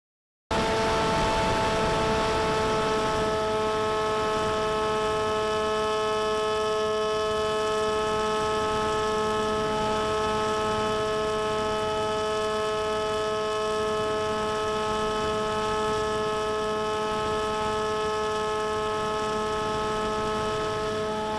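Electric motor and propeller of an FPV flying wing, heard from the onboard camera, running at a steady pitch under constant throttle; it starts abruptly about half a second in.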